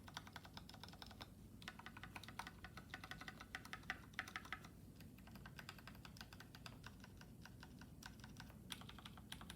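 Typing on a Monstargear XO v3 mechanical keyboard with a brass plate and lubed, filmed Boba franken linear switches under PBT keycaps: fast runs of keystrokes with brief pauses between them.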